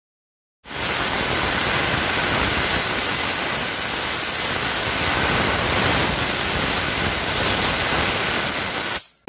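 Handheld steam cleaner jetting steam from its nozzle onto a refrigerator door gasket: a steady hiss that starts about half a second in and cuts off just before the end. The steam is heating a pinched door seal so it can be fluffed back out to seal properly.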